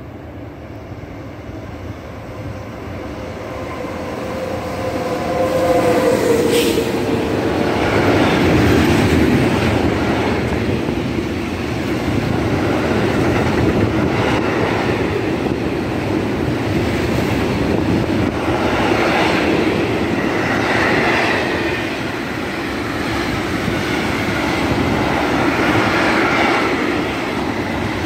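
SNCF BB 26000 electric locomotive hauling a freight train of tank wagons past. The sound grows louder over the first few seconds, with a tone that dips in pitch as the locomotive goes by. Then the wagons' wheels keep up a steady rumble and clatter over the rails.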